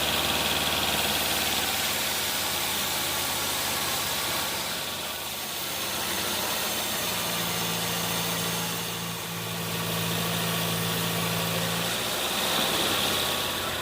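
Sawmill engine running steadily, with a low hum and a high whine; it eases off briefly twice.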